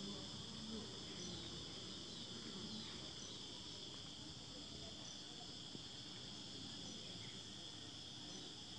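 Steady high-pitched chorus of insects chirping outdoors, faint and unbroken.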